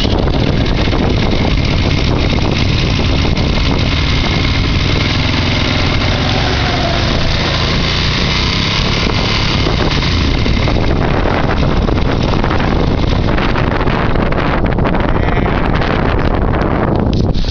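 Motorcycle engine running steadily, heard close up from the handlebars under a constant rushing noise.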